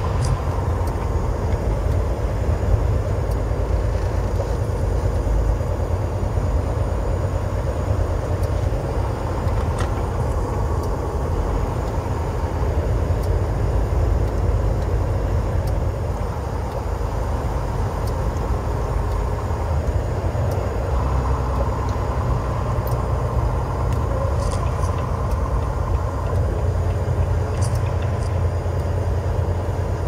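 Steady low rumble of a semi truck's engine and road noise, heard inside the cab while driving at highway speed.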